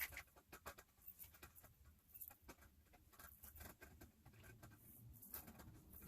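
Faint, scattered light taps and clicks of garment rack parts being handled during hand assembly.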